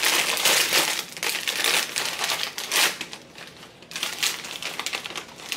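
A bag of Zapp's Voodoo kettle-style potato chips crinkling loudly as it is pulled open and handled. There is a short lull about three seconds in, then more rustling.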